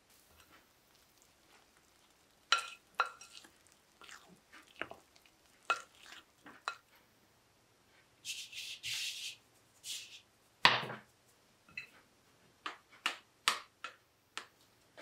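Spoon stirring and knocking against a glass mixing bowl while flour and water are mixed into dough: a series of sharp clicks and taps, a short scraping hiss a little past the middle, then a louder knock.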